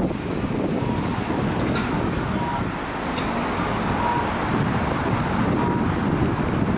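Steady road traffic rumble with wind on the microphone. A short high beep repeats about every second and a half.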